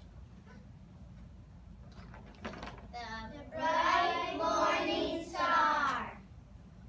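A group of young children singing together: one short sung phrase of about three seconds, starting about three seconds in, after a quiet stretch.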